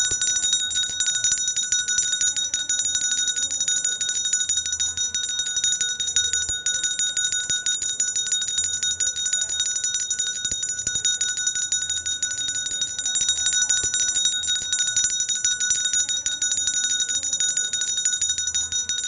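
Small hand bell of the kind ice-cream and street vendors use, shaken continuously so the clapper strikes very rapidly and the bell rings on without a break.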